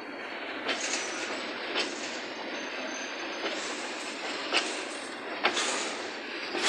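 Freight train of boxcars rolling slowly past: steady noise of steel wheels on the rails, with a sharp clack at the rail joints about once a second and a brief high wheel squeal about halfway through.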